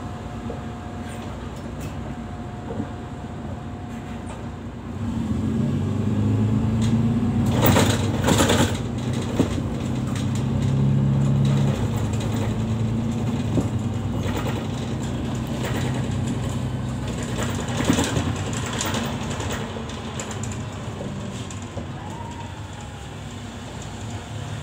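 Mercedes-Benz city bus heard from inside the passenger cabin. The engine works harder about five seconds in as the bus accelerates, with a few knocks and rattles from the body, then eases off as it rolls on.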